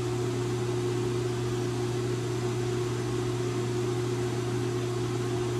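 Steady electric hum of a Hardinge collet lathe running at low speed: a low hum with a fainter higher tone above it.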